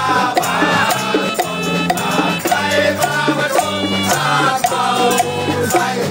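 Lively folk-style party music: hand drums and rattles keep a steady beat under held melody notes, while people sing and shout along.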